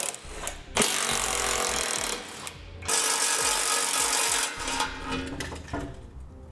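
Cordless power tool with a 15 mm socket running in bursts as it backs out the bolts that hold a Jeep Wrangler's front skid plate. There are two longer runs of about a second each, then a few short blips.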